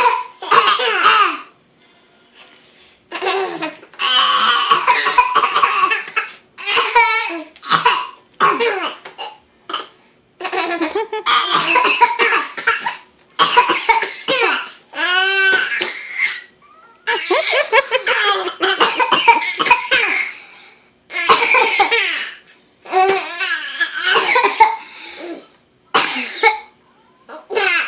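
Fake coughing in rough bouts of a second or more, each answered by a baby's high-pitched laughter. The cough-and-laugh exchange repeats about six times.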